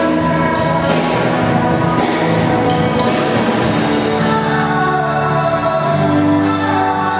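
Loud music with singing, from a live band playing on stage, with held notes.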